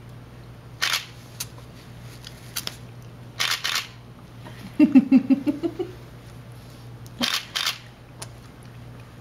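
Infant vocalising in a short run of pulsed 'ah-ah-ah' sounds that rise slightly in pitch, around the middle. Before and after it come a few short noisy smacks, in pairs, during the spoon-feeding.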